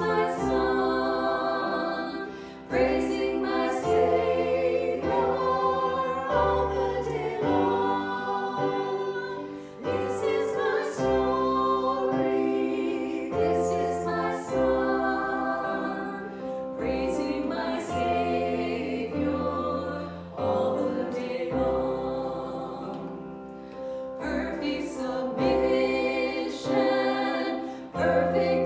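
Church music: a choir singing slow, held chords that change every second or two.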